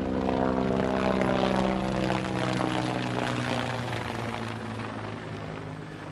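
Propeller aircraft engine drone, steady at first, then slowly fading away with its pitch sinking slightly, like a plane passing.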